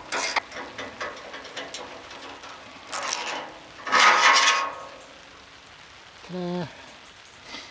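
Metal clicking and rasping of a socket ratchet turning a nut along threaded bar to draw a Land Rover chassis bush into place, in irregular bursts with the loudest about four seconds in.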